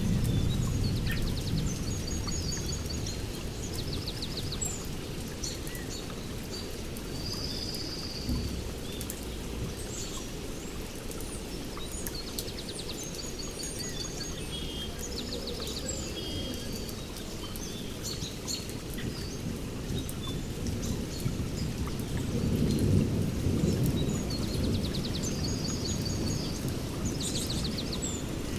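Steady rainforest rain with low rolling thunder that swells near the start and again about 22 seconds in. Birds call over it in quick, high chirps and trills.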